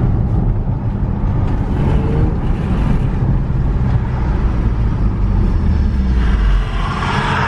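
Honda Accord, running a pops-and-burbles exhaust tune, driving with a steady low engine and exhaust drone under road and wind noise. A higher-pitched sound swells up about six seconds in.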